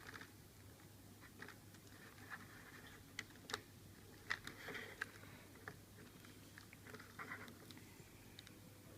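Near silence: a faint steady hum with scattered soft clicks and light rustling, the loudest clicks a little past the middle.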